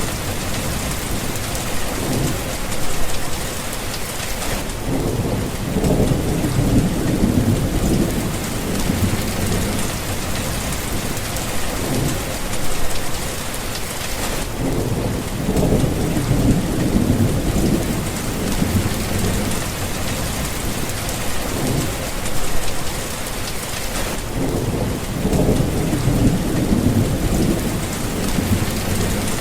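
Steady rain with rolling thunder that rumbles low three times, about ten seconds apart.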